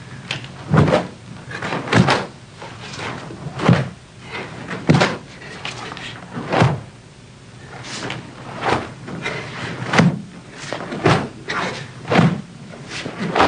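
A karateka performing a Goju-ryu kata: sharp thumps and swishes, about one a second, from bare feet stepping and stamping on a wooden floor and the cotton gi snapping with each technique.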